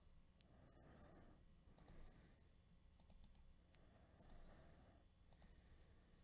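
Faint computer mouse clicks, a handful of single and double clicks spread irregularly, over near-silent room tone.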